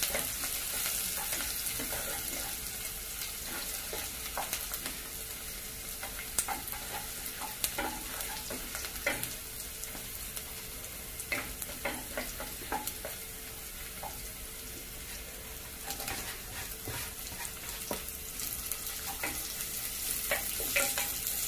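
Minced garlic sizzling in hot oil in a nonstick pan, stirred with a wooden spatula that scrapes and taps against the pan; sliced onion goes in partway through and is stirred in with the garlic.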